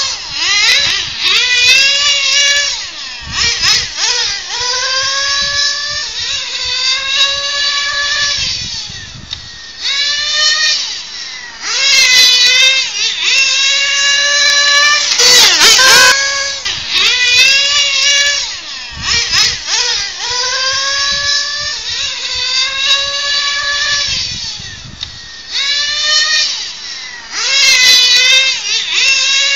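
Kyosho FW-05RR 1/10 nitro touring car's small glow engine running at high revs, its high-pitched whine rising on each straight and dropping away as it lifts off for the corners, over and over.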